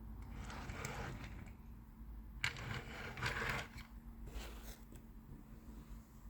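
Objects being handled: two spells of scraping and rustling, the second starting with a sharp click about two and a half seconds in.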